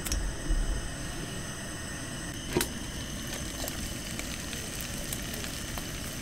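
Food sizzling and crackling in a frying pan on a heater stove, a steady frying hiss with small pops and one sharp click about two and a half seconds in.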